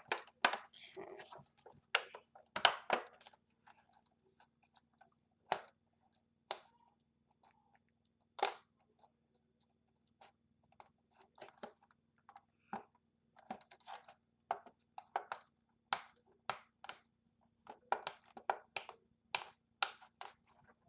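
Hands picking and peeling tape off a Beyblade's cardboard box: irregular crackles, clicks and scratches, sparse at first and coming thicker toward the end.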